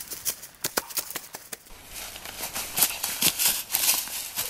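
Running footsteps crunching through dry fallen leaves, a quick run of crackling steps that gets denser and louder in the second half.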